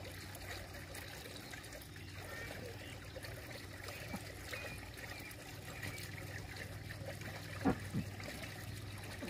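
Pool water gently trickling and lapping over a steady low hum, with two soft thumps close together near the end.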